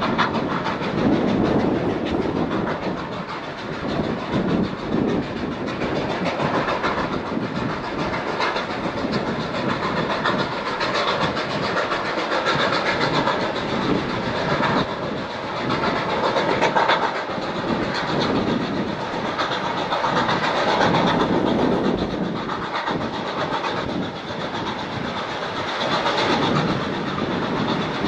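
Ex-Queensland Railways steam locomotive No. 218A running along the line: a continuous mix of steam exhaust, hiss and wheels on rail that rises and falls in level.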